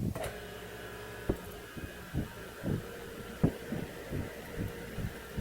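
Milling machine humming steadily while a series of irregular soft, low knocks goes on, with two sharper clicks about a second and three and a half seconds in.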